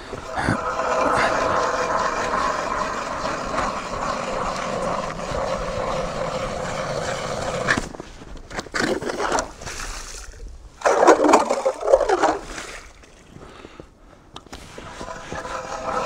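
Hand-cranked ice auger drilling through river ice: a steady grinding scrape of the blades cutting ice for about eight seconds that stops abruptly, then a few shorter scraping bursts, and another stretch of steady grinding near the end.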